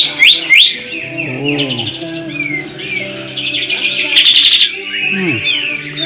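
Cucak ijo (green leafbird) singing: loud rising whistled notes at the start, then fast trills about three and four seconds in.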